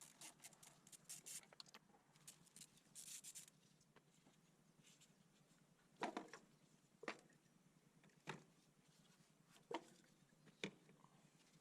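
Faint handling sounds: light rubbing and clicking for the first few seconds, then five separate light knocks about a second apart.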